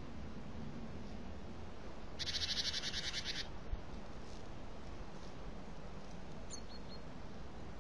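A wild bird's rapid trill, about a second long, followed by a low knock; a few faint high chirps come near the end, over steady background hiss.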